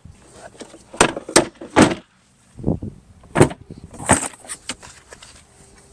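A series of sharp clicks and knocks, about six in all, with a brief dead-quiet break about two seconds in.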